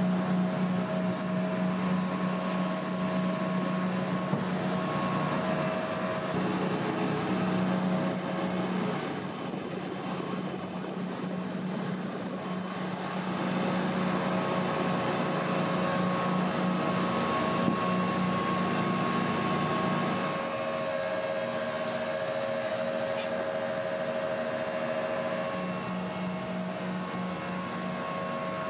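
Steady drone of running flight-line machinery, with several steady hums of different pitches; the mix of hums changes abruptly a few times.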